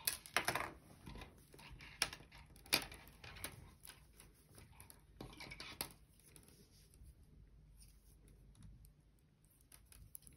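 Knitting needles and yarn worked by hand: irregular soft clicks and rustles, busiest in the first few seconds and sparser after.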